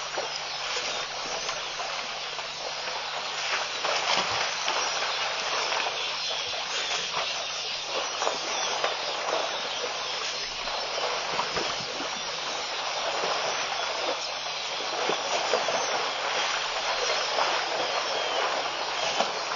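Steady outdoor hiss at the waterhole, thick with faint crackling, over a low steady hum.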